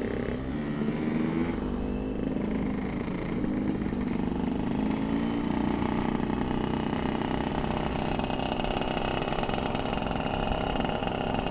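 Yamaha RX-King 135cc two-stroke motorcycle engine running while riding; its pitch shifts a little in the first few seconds, then holds steady at cruising speed.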